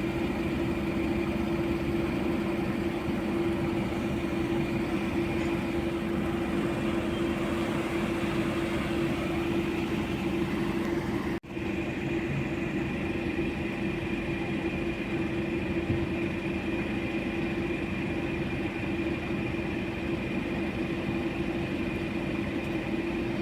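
Steady running drone of a motor vehicle, an even noise with a constant low hum and a fainter high whine, cut by a momentary dropout about eleven seconds in.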